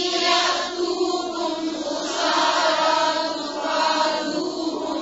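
A woman reciting the Quran in a melodic chant (tajweed recitation), drawing out long notes that slowly rise and fall with hardly a break.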